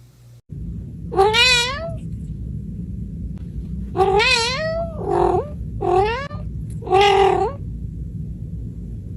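A cat meowing loudly five times, each call rising and falling in pitch, over a steady low background noise.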